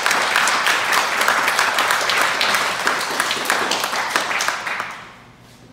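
Audience applauding, many people clapping at once; the applause dies away about five seconds in.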